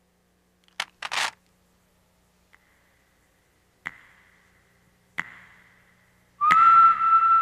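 Sparse handling clicks: a click and a short scrape about a second in, then two sharp clicks, each trailing off in a brief metallic ring. Near the end a loud, steady whistle-like music tone starts and holds.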